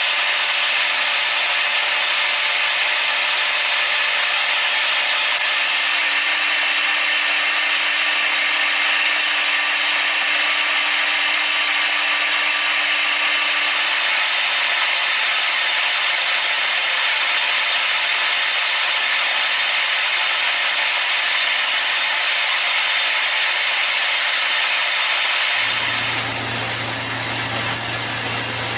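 Machine tool cutting metal with a steady, even machining noise. About 26 seconds in it cuts abruptly to a different machine sound with a low steady hum.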